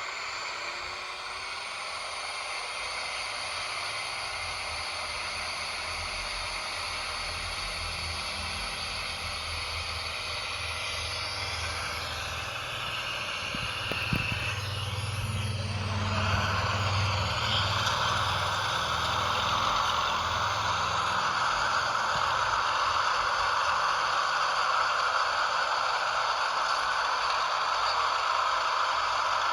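Small electric motor and gearbox of an RC toy truck running steadily with rattling. About halfway through it grows louder and harsher, with a single knock just before.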